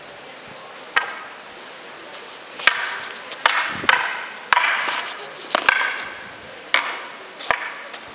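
Long wooden garrote staffs striking each other in Canarian stick-fighting sparring: sharp wooden clacks with a short ring. One comes about a second in, then about nine more follow in quick, irregular succession.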